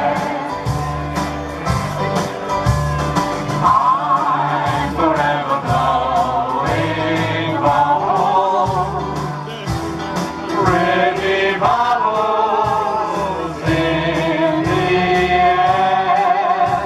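Group of singers, men and women, singing a 1940s-style popular song together into microphones over backing music with a steady pulsing bass beat.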